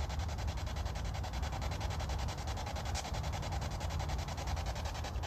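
Spirit box sweeping through radio frequencies: a steady hiss of static chopped into rapid, evenly spaced ticks as it scans, with a low hum underneath and a brief click about three seconds in.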